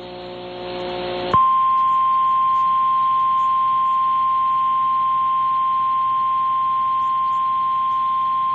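Emergency Alert System attention tone on a TV broadcast: a loud, steady single-pitch tone that comes in about a second in and holds without a break. It signals a flash flood warning about to be read. Before it there is a second or so of hiss with faint hum.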